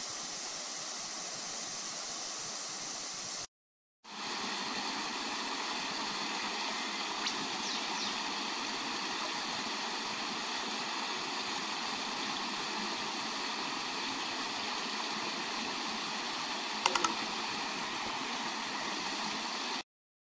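Creek water running, a steady even rush. It drops out for a moment about three and a half seconds in and comes back slightly louder; a few quick sharp clicks near the end.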